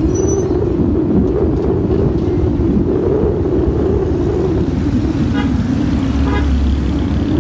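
A vehicle driving along a city street: a steady engine and road rumble. Near the end come two short vehicle-horn toots, about a second apart.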